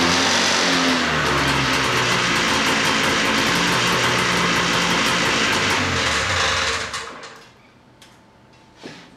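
A 1993 Arctic Cat Panther's 440cc two-cylinder two-stroke snowmobile engine running loudly, its pitch wavering, then falling away and stopping about seven seconds in. It will not idle yet, so it dies when the throttle drops.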